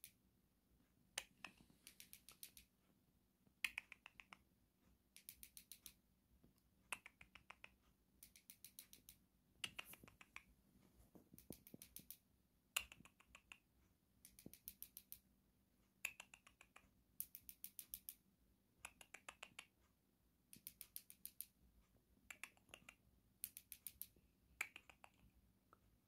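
Cockatiel making short bursts of rapid clicking, about eight to ten quick clicks per burst, the bursts repeating every second or two.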